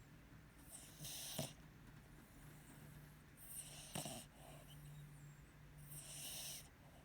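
A sleeping dog snoring quietly: three rasping, hissy breaths about two and a half seconds apart, each ending in a short sharp catch.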